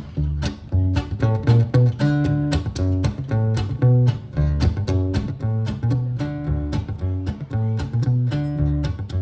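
Live band music, instrumental: a baritone guitar with effects plays a repeating picked riff with deep bass notes over a steady, quick drum beat.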